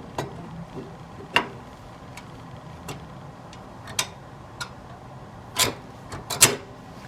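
Irregular sharp clicks and knocks, about eight over several seconds with two loud ones near the end, over a faint steady low hum: hard parts being handled.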